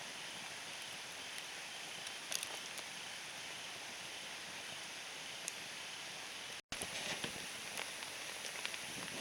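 Small wood fire crackling: scattered sharp pops over a steady hiss, the pops growing more frequent after a brief drop-out about two-thirds through.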